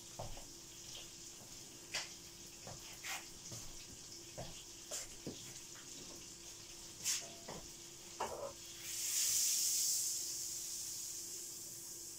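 Scattered light clicks and knocks of kitchen handling, then, about nine seconds in, butter suddenly starts sizzling in a hot frying pan, the hiss slowly fading.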